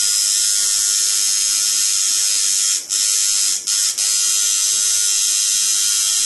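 Coil liner tattoo machine with eight-wrap coils running steadily off a 12-volt power supply, a loud, even, high-pitched buzz. It cuts out briefly three times at about three to four seconds in.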